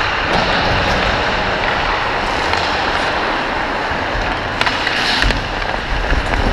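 Ice hockey skate blades scraping and carving the ice as the skater moves, a steady hiss. A few sharp clacks come near the end, and wind rumbles on the microphone in the last second or so.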